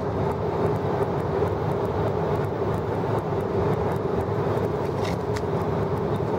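Steady cabin noise of an Embraer E-170 regional jet in flight: the even rush of engines and airflow, with a constant hum.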